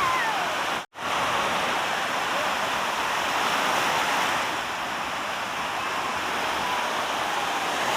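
Steady rushing of sea water, like surf or water streaming past, broken by a sudden brief dropout about a second in.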